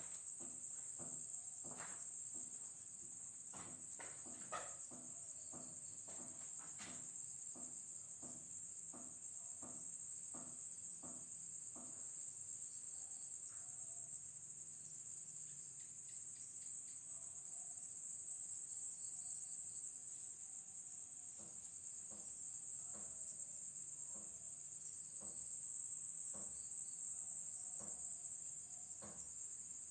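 Crickets chirring steadily in one high, continuous band, with scattered soft clicks and knocks and one sharper knock about four and a half seconds in.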